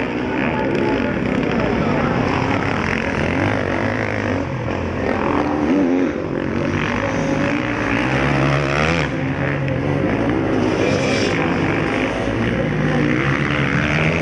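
Several motocross bikes racing, their engines revving up and dropping back over and over as the riders accelerate through the course.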